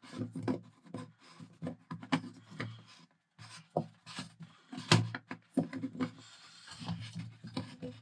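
A union nut being pushed over a heater exhaust pipe and worked into place by hand: irregular rubbing and scraping with small clicks, and a sharper knock about five seconds in.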